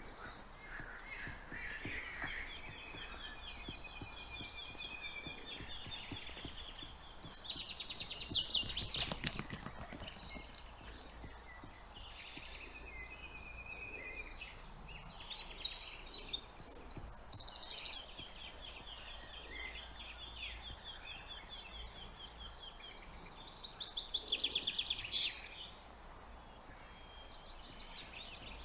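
Songbirds singing: three loud, rapid trilled phrases a few seconds each, the middle one loudest, over quieter ongoing chirping and a faint steady background hiss.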